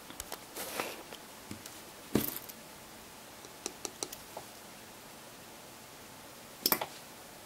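Small plastic parts of an LG G2x smartphone being handled and pressed into place during reassembly: scattered light clicks and taps, a sharper click about two seconds in and a quick double click near the end.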